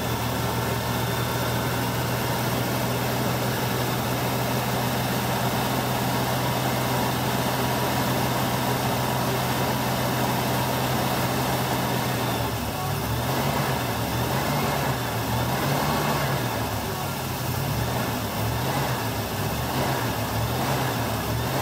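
Newly installed 327 Chevy small-block V8 running at a steady fast idle during break-in. About halfway through, its speed starts rising and falling about every second and a half as the throttle is worked at the carburetor.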